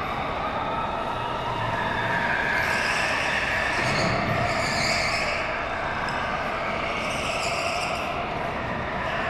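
Indoor go-karts running laps around the track, a steady mix of kart motors and tyre noise that grows louder a couple of seconds in and eases off again.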